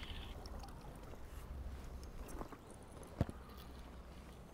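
Faint water sounds around a float tube on a lake, over a low steady rumble, with one sharp knock about three seconds in.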